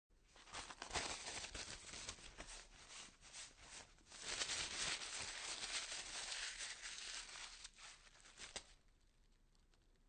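Paper being crunched and crumpled: a crackling run of many sharp snaps, densest and loudest in the middle, ending with one last snap and stopping about a second before the end.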